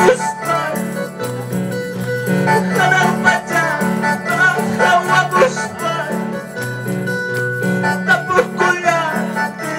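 Evangelical worship music: a wavering singing voice over keyboard and plucked strings, with a bass line that steps between a few held notes.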